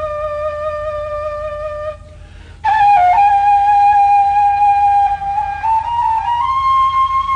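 Solo Bulgarian kaval, the wooden end-blown shepherd's flute, playing a slow shepherd's melody. A long held note breaks off about two seconds in for a short breath. A new phrase then enters higher with a quick ornamental flick and climbs in small steps to another long held note.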